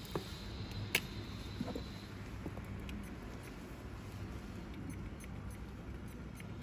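Small clicks and rubbing of fingers handling a perfume bottle and its cap, with one sharper click about a second in, over a low steady hum.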